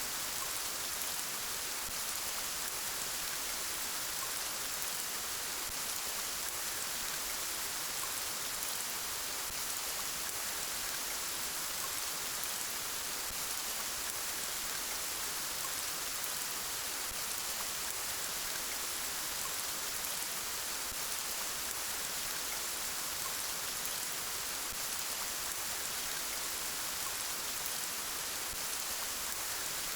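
Steady rain falling, an even hiss of many drops without breaks or thunder.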